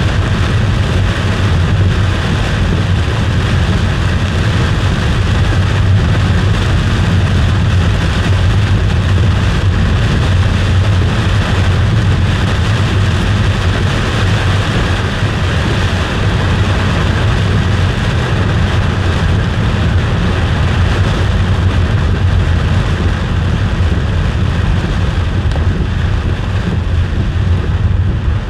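Steady road and engine noise inside a moving vehicle, with rain on the car as it drives through a storm.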